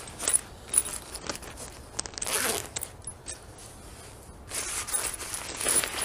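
Footsteps crunching and rustling through dry leaves and brush in uneven bursts, with a few sharp snaps. The bursts are loudest in the middle of the stretch and again near the end.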